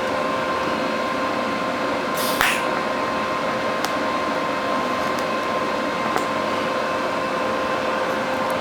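TIG welding arc on steel, burning steadily with an even hiss and a constant hum, run hot to melt in and close pinholes. There is a brief sharp crackle about two and a half seconds in.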